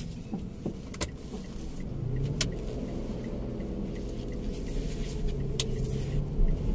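Mitsubishi car's engine running at low speed, heard inside the cabin as a steady low hum that rises slightly about two seconds in. Three short, sharp clicks break in along the way.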